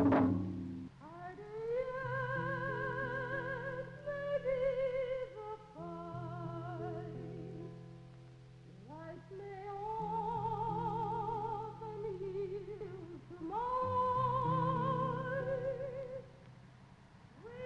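Music: a solo singing voice holding slow, long notes with wide vibrato, each phrase beginning with an upward slide, over sustained low chords that change every few seconds.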